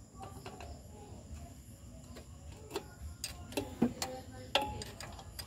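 Light metallic clicks and knocks of hand tools working on engine parts during disassembly, scattered and irregular, coming more often in the second half.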